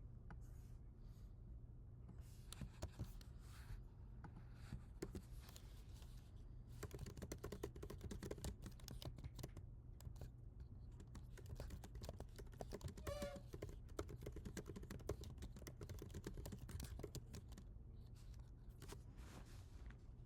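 Typing on a computer keyboard: runs of key clicks, sparse at first and then fast and dense through most of the middle, over a low steady hum. A brief wavering squeak comes a little past halfway.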